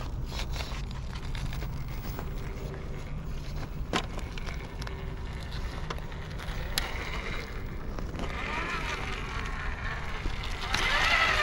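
Radio-controlled rock crawler (Vanquish VS4-10 Phoenix) working over sandstone: its electric motor and drivetrain whining under throttle, tires scrabbling on rock, and two sharp knocks as the truck drops onto the ledges.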